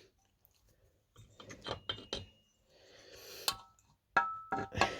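A freshly assembled chainsaw crankcase being handled and its crankshaft turned over by hand: bunches of small metallic clicks and clinks, some ringing briefly, in two spells with a short rustle between.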